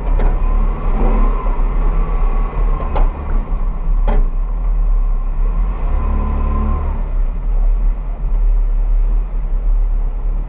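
Off-road vehicle driving across sand dunes: the engine runs under load, its pitch rising and falling twice, over a heavy low rumble, with two sharp knocks about three and four seconds in.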